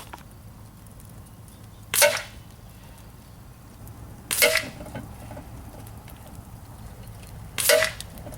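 Gamo Shadow 640 .177 break-barrel spring-piston air rifle firing: three sharp cracks, about two to three seconds apart, each with a brief ringing twang.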